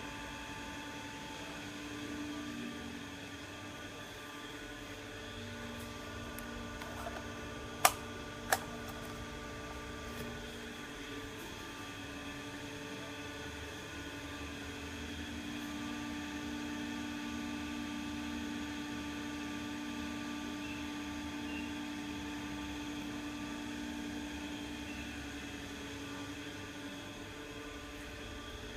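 48-inch CMC Niko industrial ceiling fan running, its motor giving a steady hum of several held tones. Two sharp clicks about half a second apart come a little over a quarter of the way in.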